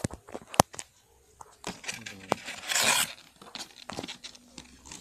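Packaging for a new sewing machine being handled and torn open by hand: scattered clicks and knocks, with one longer rip a little past halfway.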